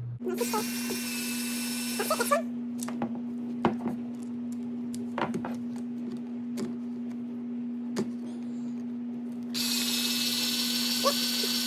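Power drill driving small screws into a plastic RC car gearbox, whining in two bursts of about two seconds, one at the start and one near the end, with small clicks and taps between. On the last burst the adult worries the screw is just spinning rather than biting. A steady low hum runs underneath.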